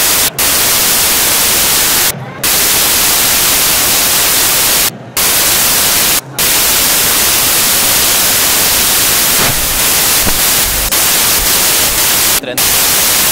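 Loud, even static hiss covering all pitches, broken by short drop-outs about five times. It is a recording or encoding fault, not a sound from the scene.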